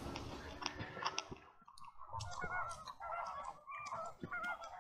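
A distant flock of flamingos calling: a faint, continuous chorus of many short, wavering, goose-like honks overlapping one another, with a few faint clicks among them.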